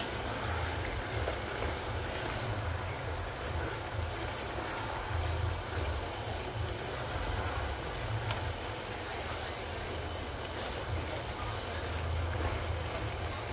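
Chicken and diced courgette frying in a pan on high heat: a steady sizzle, with a spatula stirring through it now and then, over a low rumble.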